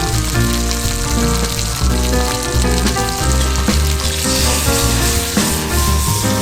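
Food sizzling as it fries in a pan, a steady hiss, under background music with a bass line.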